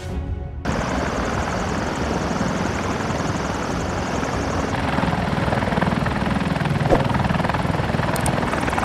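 Military helicopter running close by: a steady rotor chop over turbine noise that starts abruptly about half a second in.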